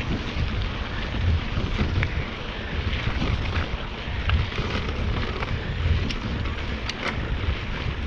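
Wind buffeting the microphone of a mountain bike riding down a dirt and gravel road, with the rumble of the tyres on the rough surface. A few sharp clicks come about six and seven seconds in.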